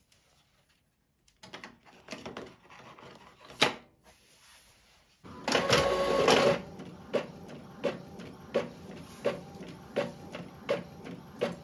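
Epson EcoTank L3211 inkjet printer taking in a sheet of holographic vinyl: faint rustling and a sharp click as the sheet is set in the rear feed, then about five seconds in a loud whirr of the feed rollers pulling it in. It then prints, with a low hum and a regular click a little faster than once a second.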